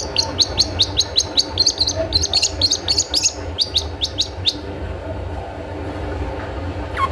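Long-tailed shrike (cendet) calling its 'toet toet' call: a rapid run of short, high, downward-slurred notes, about six a second, which stops about four and a half seconds in. A few lower falling notes begin near the end, over a steady low hum.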